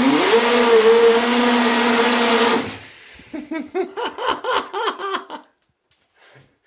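RC boat's electric motor and propeller running hard in bathwater, a loud whine with churning water that rises in pitch as it spins up and cuts off suddenly just under three seconds in. Quieter short bursts of sound follow.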